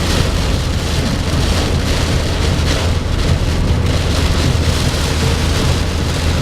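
Heavy thunderstorm rain drumming steadily on a car, with a strong steady low rumble underneath and the downpour surging slightly about once a second.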